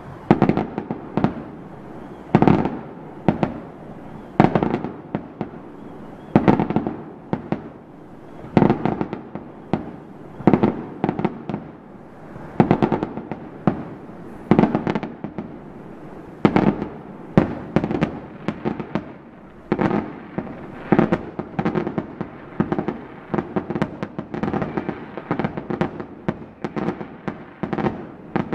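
Aerial firework shells bursting one after another, each a sharp bang trailed by a rolling echo. The bangs come every second or two, then crowd together faster near the end.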